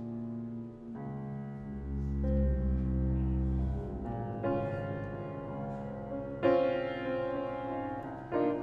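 Instrumental introduction played live on piano with double bass, no singing yet: sustained chords changing every second or two, with a deep bass note under them from about two seconds in.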